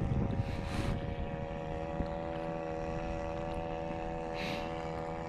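A boat engine running steadily at an even pitch, over a low rumble of wind and water, with brief hissing swishes about a second in and again near the end.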